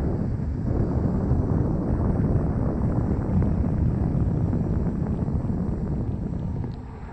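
Wind rushing over the microphone with tyre rumble from a Begode (Gotway) RS electric unicycle riding on asphalt at about 25 km/h. The noise drops off briefly near the end as the wheel slows.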